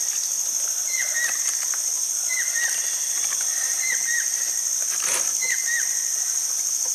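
A steady, high-pitched drone of forest insects, with a bird repeating a short two-note call about every second and a half. There is a light knock about five seconds in.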